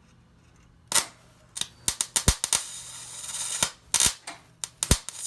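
Welder laying short tack welds on a muffler pipe: a run of sharp crackling bursts, some brief and one lasting about a second, starting about a second in.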